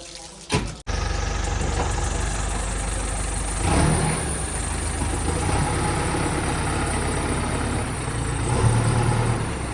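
Heavy diesel engine running steadily, coming in abruptly about a second in. It swells briefly twice, near the middle and near the end, as it takes load.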